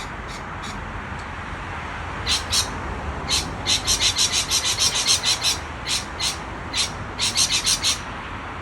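Lorikeets calling excitedly: short high-pitched calls, a few at first, then a rapid run of about five a second from about three and a half seconds in, and another quick burst near the end, over a steady background hiss.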